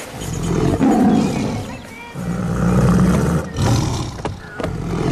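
Caged wild animal roaring: two long, loud roars, the first starting almost at once and the second about two seconds in.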